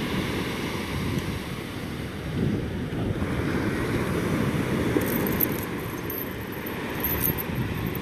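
Atlantic surf breaking and washing up a sandy beach, with wind rumbling on the microphone.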